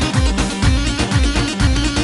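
Instrumental Arabic dabke dance music, no singing: a driving electronic beat with repeated deep, falling bass-drum hits under sustained keyboard tones.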